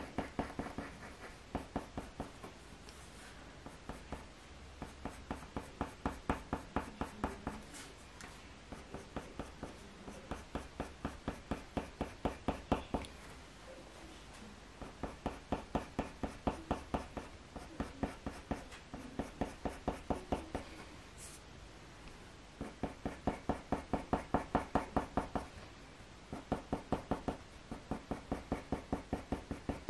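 Faber-Castell Polychromos coloured pencil scratching across hot press watercolour paper in quick, short flicking strokes, several a second, drawing hedgehog fur. The strokes come in runs of a few seconds with short pauses between them.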